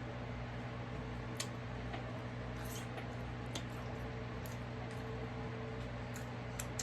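Faint wet clicks and smacks of chewing, a few times, over the steady low hum of an electric fan.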